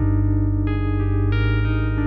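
Background music: sustained keyboard-like chords over a steady low bass, with the chord changing about two-thirds of a second in and again a little after a second.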